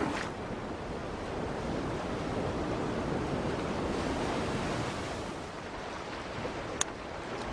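Ocean surf washing onto a shore, a steady rushing wash of waves with some wind, and one brief click near the end.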